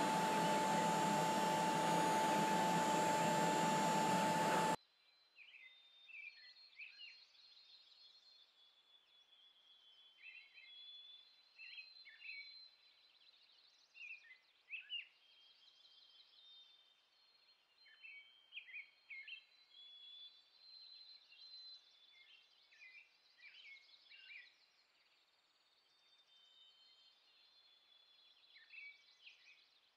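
CNC router spindle running with a steady high whine over loud cutting noise as the bit bores peg holes in an oak board. It cuts off abruptly about five seconds in, leaving only faint birds chirping in short scattered calls.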